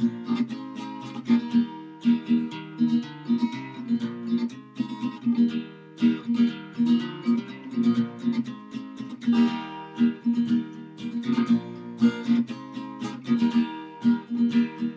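Acoustic guitar playing a country-style blues, with a low note struck again and again at a steady beat under the chords and runs.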